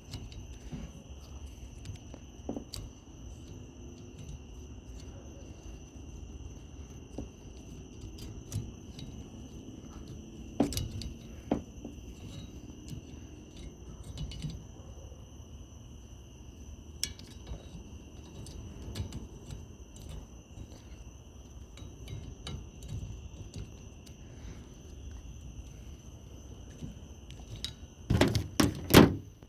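Scattered light clicks and knocks of a wiper blade being worked onto its wiper arm, with a louder cluster of knocks near the end. Insects chirr steadily on a high pitch throughout.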